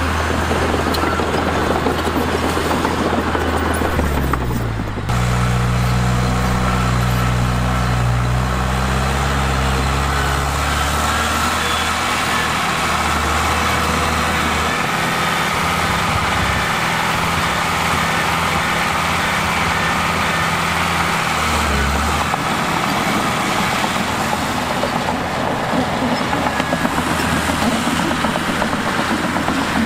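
Diesel engines of earthmoving machinery running under load. The engine pitch shifts about four to five seconds in, then settles into a steady drone.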